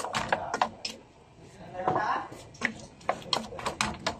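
Wooden spoon knocking and scraping against a metal cooking pot as cut carrots and potatoes are stirred in oil, in a quick run of irregular clicks.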